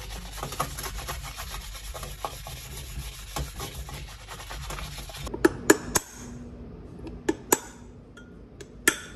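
Dense, scratchy rubbing and scraping for about five seconds. Then a handful of sharp metallic taps ring out: three in quick succession, two more a second later, and one near the end, as a steel drift punch is struck inside a motorcycle wheel hub.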